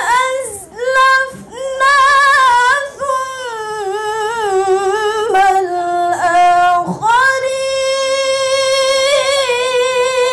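Woman reciting the Qur'an in melodic tilawah style, unaccompanied: a solo voice singing ornamented phrases with short breaths between them, then one long held note from about seven seconds in.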